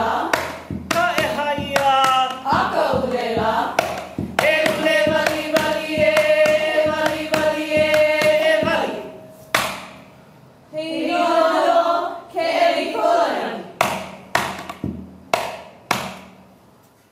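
Hula chant with a steady beat of strikes on an ipu gourd drum. About two-thirds through, the voice holds one long note and breaks off, then comes back briefly. A few last, spaced gourd strikes close the piece.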